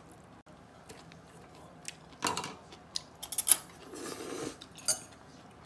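Chopsticks clicking and tapping against ceramic plates and bowls as food is picked up, a scatter of separate taps with the loudest cluster about three and a half seconds in.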